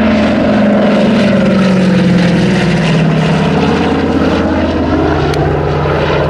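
Douglas Dakota's twin radial piston engines and propellers droning as it flies low overhead. The engine note falls steadily in pitch over the first few seconds as the aircraft passes, then holds at a lower pitch.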